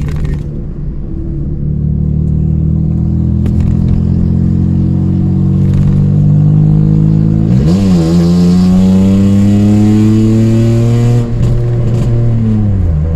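Toyota Aygo engine heard from inside the cabin, loud through an exhaust that has lost its silencer, the car accelerating with the engine note slowly climbing. About eight seconds in the pitch dips briefly and jumps up, and near the end it rises and falls once more.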